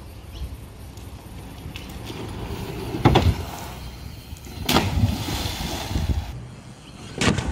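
BMX bike rolling over a timber boardwalk and off a kicker ramp, with rider and bike splashing into the lake. The rolling rumble builds, and sharp hits stand out about three, five and seven seconds in.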